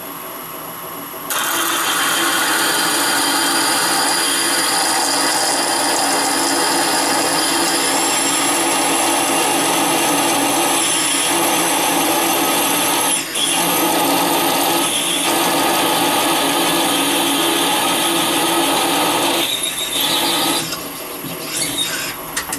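Serdi 100 spindle driving a combination core drill and reamer through a worn valve guide in a Plymouth 318 poly cylinder head: a loud, steady cutting noise with a high whine. It starts about a second in, dips briefly around the middle and dies away near the end as the guide is drilled out.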